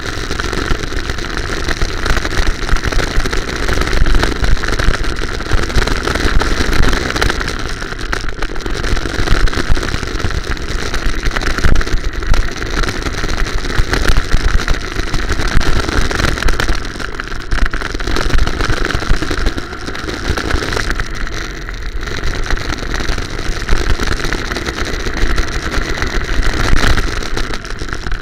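Go-kart engine running under throttle, recorded by a camera mounted on the kart with heavy low rumble, its level swelling and easing continually.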